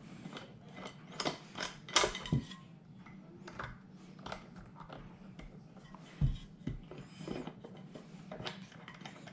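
Plastic parts of a Lenovo all-in-one computer being refitted and pressed back into place by hand: scattered clicks, snaps and creaks, the loudest about two seconds in.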